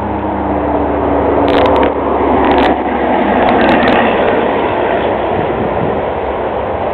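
Steady, loud rumble of a passing vehicle, with a few short sharp clicks about a second and a half, two and a half and three and a half seconds in.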